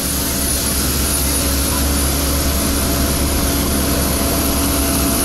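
Steady jet airliner noise on the apron: a loud, even roar with a constant high whine.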